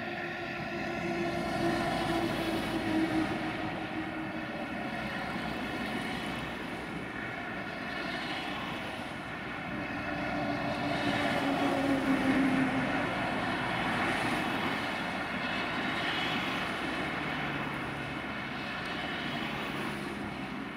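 Airbus A320-232 jet airliner climbing away after takeoff, its twin IAE V2527 turbofan engines making a steady rumbling jet noise with humming tones that slowly drop in pitch. The sound swells twice in loudness.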